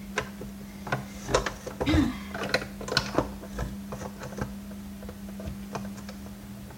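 Irregular clicks and taps of a screwdriver bit on an extension knocking against a vacuum cleaner's plastic housing as it is fished down onto a deep-set screw head, thickest in the first few seconds and then sparser. A steady hum runs underneath.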